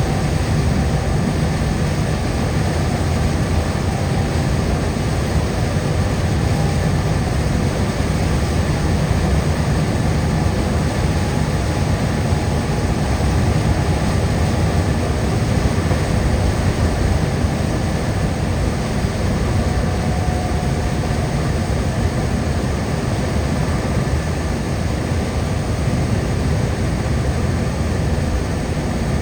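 Car driving at highway speed: a steady low rumble of tyres and engine with a constant hiss over it.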